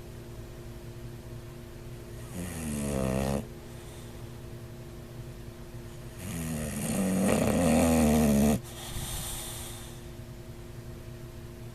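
Bulldog snoring: a short snore about two seconds in, then a longer, louder snore from about six seconds in that cuts off sharply, followed by a softer breathy exhale. The uploader suggests such snoring could be a sign of sleep apnea.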